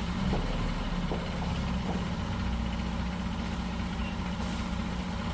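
Heavy truck engine idling steadily, a low even hum.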